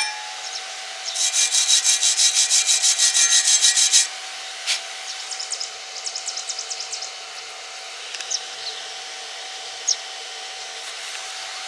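Rapid back-and-forth scraping with a hand tool, about seven strokes a second for roughly three seconds, then a fainter, shorter run of strokes and a few isolated clicks, over a steady hum.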